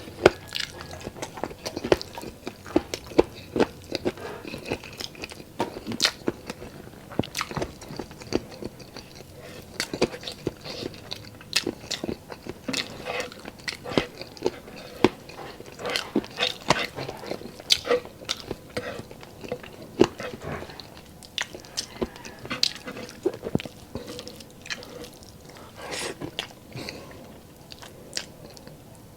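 Close-up eating sounds of a person chewing and biting into pork adobo and rice: wet mouth clicks and smacks come irregularly and often, with no pause.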